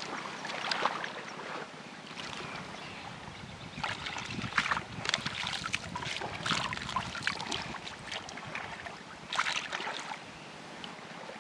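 Shallow muddy water splashing and sloshing as a woven plunge-basket fish trap is pushed down into it and hands work at its open top, with irregular sharp splashes.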